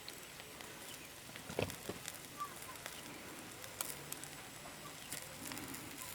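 Faint crackling of a cooking fire, scattered clicks over a low hiss, with one louder knock about one and a half seconds in.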